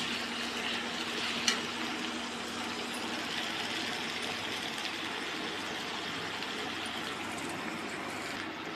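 Cauliflower and potato pieces sizzling steadily as they fry in oil in a kadhai. A metal slotted spoon clicks against the pan twice near the start.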